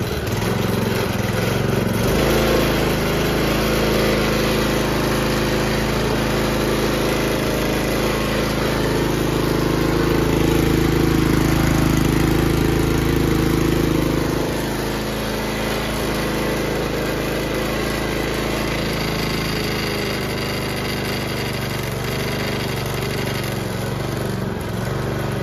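Suzuki engine of a 1988 Toro 20622 walk-behind lawn mower running steadily, freshly started from cold; about halfway through it turns slightly quieter. The owner says it needs a carb cleaning and will not run at low speed.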